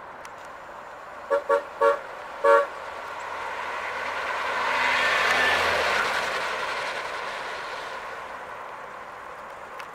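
1980 Buick Riviera's horn tooting four times in quick succession, then the car driving past, its V8 engine and tyres swelling to a peak and fading away.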